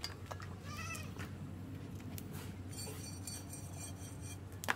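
Taro stalks being stripped and cut against an iron boti blade, giving scattered sharp clicks and snaps, the loudest just before the end. A short wavering animal call sounds about a second in.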